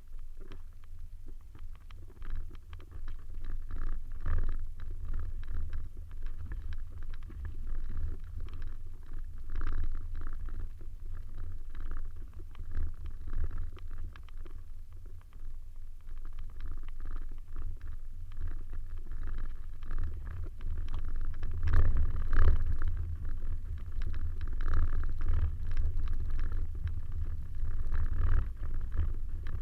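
Suzuki Swift driving over rough ground off-road: an uneven low rumble with scattered knocks and rattles, growing louder from about two-thirds of the way in.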